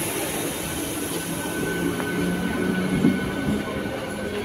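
Eastern Railway electric suburban local train (EMU) running slowly past along the platform. Its wheels and running gear make a steady rumble, and a thin steady whine comes in about one and a half seconds in.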